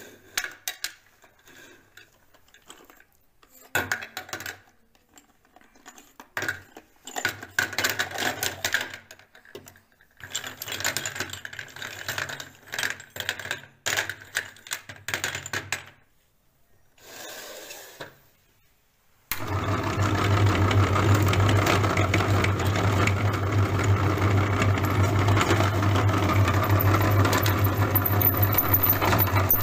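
Sticks of chalk clatter and rattle onto a dish in short bursts. About two-thirds through, an electric meat grinder switches on suddenly and runs steadily with a low hum and dense crackling as it grinds the chalk into powder.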